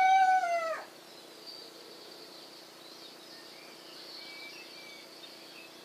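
The tail of a rooster's crow, a loud held call that bends down in pitch and stops under a second in. After it, a quiet outdoor background with a steady high hiss and a few faint bird chirps.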